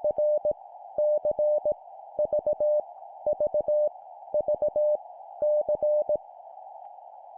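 Morse code (CW) tone keyed at 17 words per minute, a single steady mid-pitched beep broken into dots and dashes, sending one random letter about every second over a steady narrow band of hiss like a radio receiver's noise. The letters stop a little after six seconds in, leaving only the hiss.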